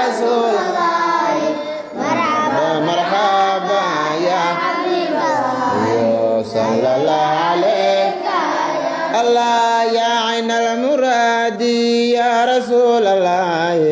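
Arabic devotional praise song to the Prophet Muhammad, sung in long wavering, melismatic vocal lines over a steady held note underneath.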